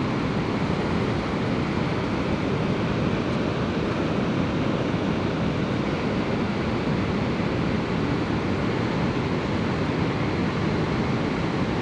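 Swollen River Aire in flood, its water rushing past in a steady, unbroken noise.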